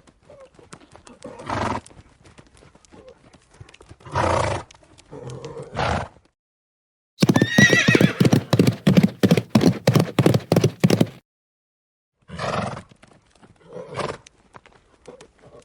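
Horse sound effects: a few short snorts and light hoof steps, then about seven seconds in a fast run of galloping hoofbeats with a neigh near its start, lasting about four seconds and cutting off suddenly, followed by more snorts.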